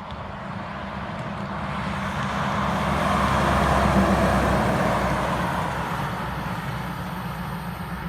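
Kenworth W900 logging truck's diesel engine and tyres going past. The sound swells to its loudest about four seconds in, then fades away.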